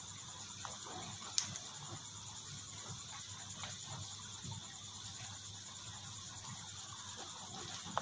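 Faint, steady chirring of night insects, with a single click about a second and a half in.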